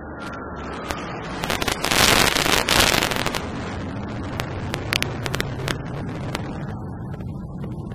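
Jet engines of three fighter jets flying past in tight formation: a loud roar that builds to a peak with sharp crackling about two to three seconds in, then settles into a steady rumble as the jets draw away.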